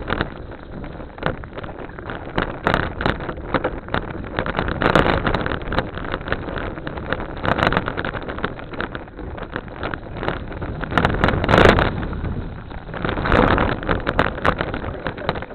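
Wind buffeting the microphone while riding, mixed with a run of rattles and knocks from the bike going over rough ground.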